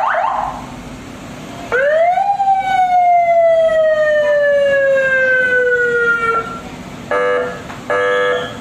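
Electronic siren on a DFSK Glory 580 ambulance conversion. A fast warble cuts off just after the start. Then one tone rises quickly and falls slowly over about five seconds, and two short horn-like blasts come near the end.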